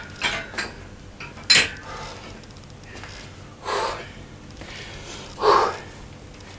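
A man breathing hard after a set of barbell squats, with two loud gasping breaths in the second half, and a single sharp knock about one and a half seconds in.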